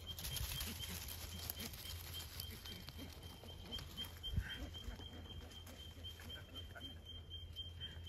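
Bush ambience: a steady, rapid high chirping that repeats about four times a second, over an uneven low rumble, with one soft thump about four seconds in.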